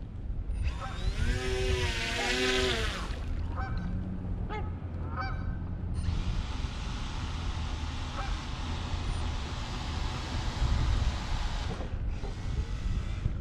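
Geese honking: one long wavering honk, then a few short honks. Then a steady rushing hiss runs for about six seconds over a low rumble.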